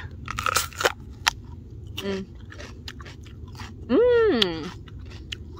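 Crisp bites and chewing of a raw, ripe sweet pepper, crunching sharply in the first second or so. About four seconds in, the eater gives a drawn-out hum that rises then falls in pitch.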